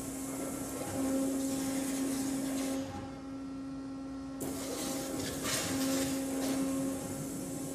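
Flow waterjet cutting a gasket sheet: the high-pressure jet hisses over a steady machine hum. The hiss cuts out about three seconds in, returns about a second and a half later and drops away again near the end, as the jet switches between cuts.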